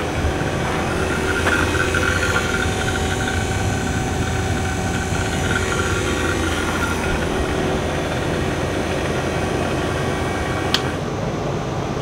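Refrigeration vacuum pump running steadily, evacuating a heat pump's copper line set to deep vacuum. A single sharp click comes near the end, and the running sound drops slightly after it.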